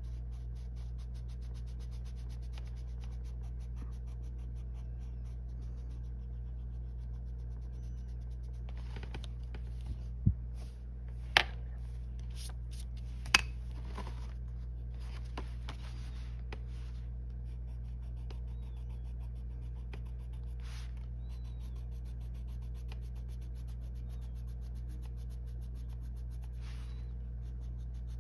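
Colored pencil scratching on paper in quick light strokes as it blends layered colours together, over a steady low hum. About ten seconds in there are three sharp clicks within three seconds.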